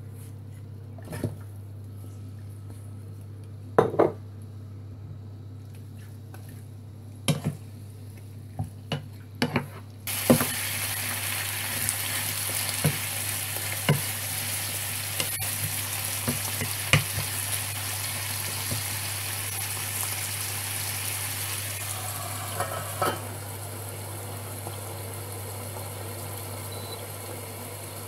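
Chicken pieces frying in hot oil in a nonstick pan: a few clunks, then a loud, steady sizzle from about ten seconds in as they are stir-fried, with a wooden spatula knocking against the pan now and then. Near the end the sizzle drops after a clatter as a metal lid goes on. A steady low hum runs underneath throughout.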